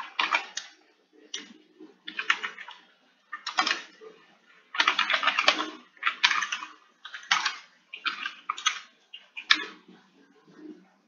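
Typing on a computer keyboard: quick runs of keystrokes in about eight short bursts with brief pauses between them.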